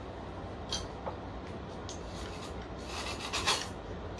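Hands rummaging to fetch a guitar effects pedal: a few light clicks, then a longer scraping rustle about three seconds in, over a low steady hum.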